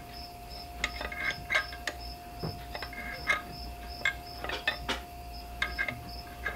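An insect chirping steadily, a short high chirp about two to three times a second, with scattered light clicks and taps and a faint steady hum underneath.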